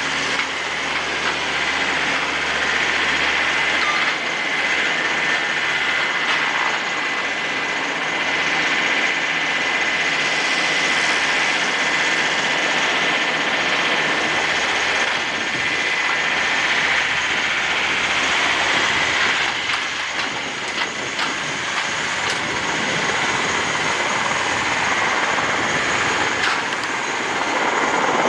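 Embraer EMB-135BJ business jet taxiing on its Rolls-Royce AE 3007 turbofans: a steady jet noise with a constant high whine over it.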